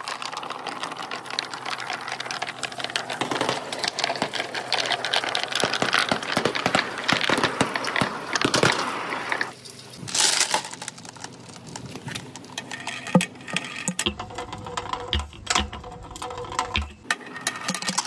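Balls rolling and clattering through a bamboo-tube marble run: a continuous stream of rapid clicks and knocks, briefly thinning out about halfway through.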